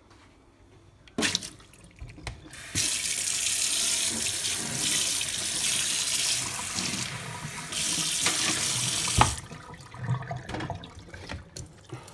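Water running from the under-sink purifier's kitchen tap into a pet's water bowl for about six and a half seconds. A click comes before it, and a knock comes as the tap is shut off.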